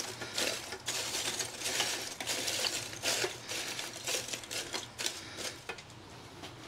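Lump charcoal pieces clinking and clattering as they go into a charcoal basket. The rattle is dense and uneven, thinning out near the end.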